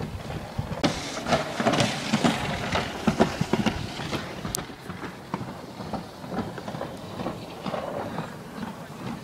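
Alpine slide sled clattering down its track, a rapid, irregular run of knocks and rattles, heaviest in the first few seconds and lighter after.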